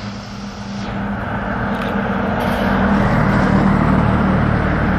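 Heavy truck diesel engines running as a convoy of trucks drives up, a steady low engine hum growing louder over the first couple of seconds as a truck approaches.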